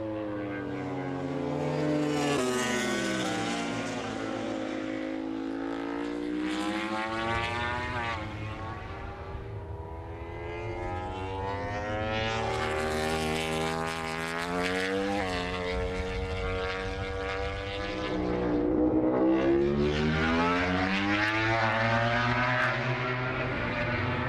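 KTM RC16 MotoGP bike's V4 engine at racing speed, its pitch climbing and dropping again and again as the bike accelerates and slows.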